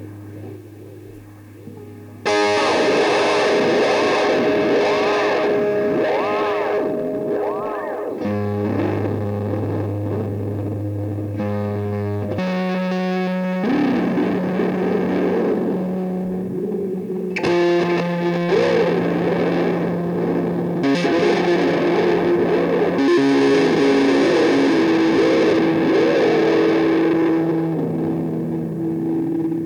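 Guitar played through a Wampler Ethereal reverb and delay pedal: sustained notes and chords with long, washy trails. The playing comes in loud about two seconds in and changes chord every few seconds.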